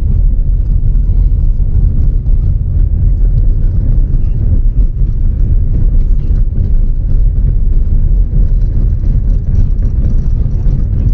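Vehicle on the move: a loud, steady low rumble of driving noise.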